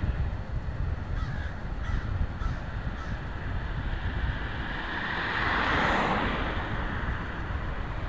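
Wind rumbling on the microphone throughout, with a crow cawing a few times in the first three seconds. Around five to six seconds in, an oncoming car passes with a swelling rush of tyre and road noise.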